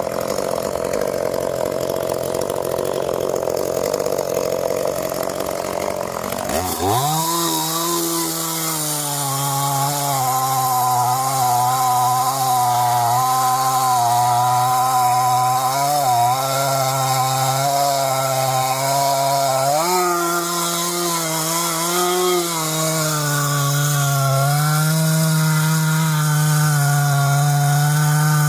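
Gasoline chainsaw cutting through oak wood. A steady, lower machine noise runs first. About seven seconds in, the saw revs up sharply to full throttle and holds there, its pitch dipping briefly a few times as the chain bites under load.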